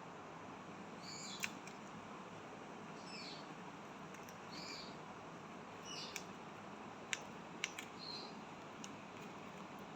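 Indian ringneck parakeet giving short, high chirping calls, about one every second and a half, over a steady hiss, with a few sharp clicks in between.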